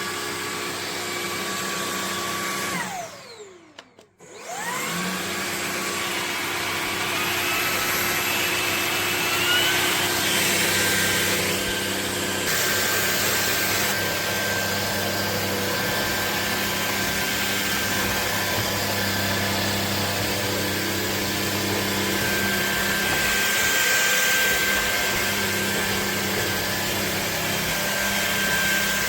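Motor of a LEVOIT cordless stick vacuum whining as it runs. It winds down and switches off about three seconds in, spins back up a second later, then runs steadily, its whine stepping up in pitch around ten seconds in.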